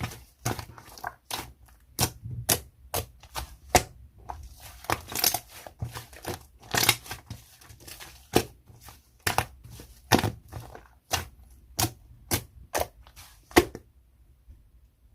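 Slime being pressed and squeezed by hand, giving sharp popping clicks of trapped air, about two or three a second, that stop shortly before the end.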